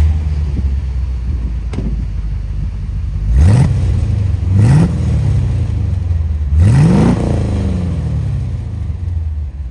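1975 Chevrolet Corvette's L82 350 small-block V8 idling, blipped twice about a second apart and then revved once a little longer, each time rising and dropping back to idle.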